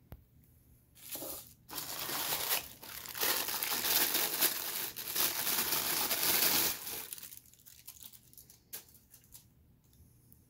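Thin plastic packaging bag crinkling and rustling as it is handled and pulled off an action figure, starting about a second in and dying down after about seven seconds into a few faint handling clicks.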